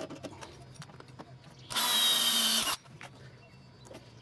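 Power drill with a 3/8-inch bit running in one short burst of about a second, near the middle, drilling a mounting hole through a drill guide into the loader bucket's lip. Faint clicks of handling come before and after it.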